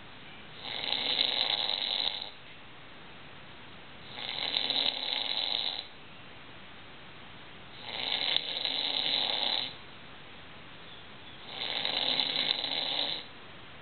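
A man snoring in his sleep: four long, rasping snores, each just under two seconds, coming about every three and a half to four seconds with quiet gaps between.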